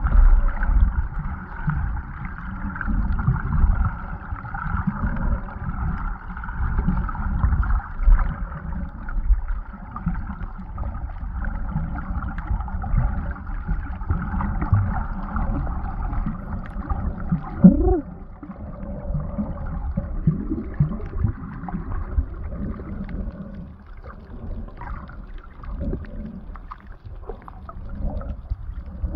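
Muffled underwater ambience picked up by a submerged camera: a steady low rumble and sloshing of water moving around it as the swimmer moves, with one short rising squeak a little past halfway.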